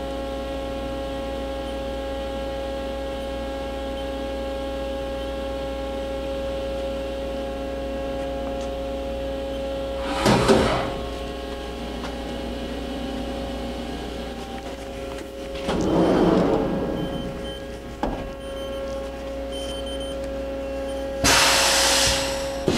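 2008 Haas EC-500 horizontal machining center going through a pallet change. A steady machine hum with several steady tones runs throughout. It is broken by a short hiss about ten seconds in, a longer noisy rush around sixteen seconds, a click at eighteen, and a loud hiss in the last second or so.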